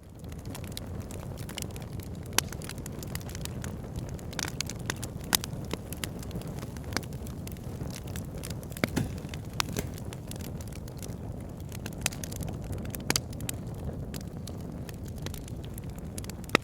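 Log fire burning in a fireplace: a steady low rumble of flames with frequent crackles and sharp pops of the burning wood, a few pops louder than the rest.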